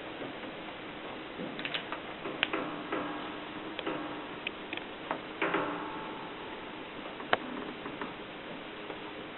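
Erika S manual typewriter clacking as keys are struck slowly and irregularly, about a dozen sharp strikes, several followed by a short metallic ring.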